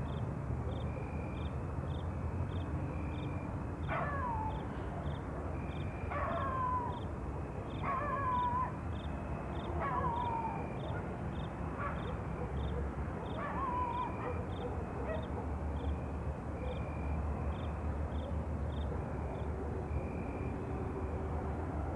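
Night ambience: a high chirping repeats about twice a second over a steady low rumble, and from about four seconds in an animal gives six short falling cries, roughly two seconds apart, that stop about fourteen seconds in.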